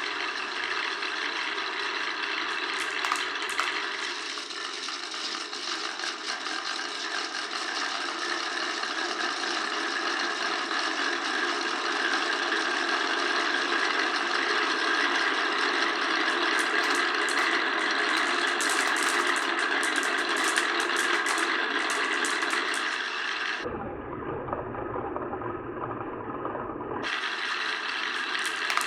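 Many glass marbles rolling and clattering along a wooden marble run: a continuous rolling rattle with sharp clicks, which grow more frequent in the second half. About 24 s in, a different, muffled low rumble cuts in for about three seconds before the rolling returns.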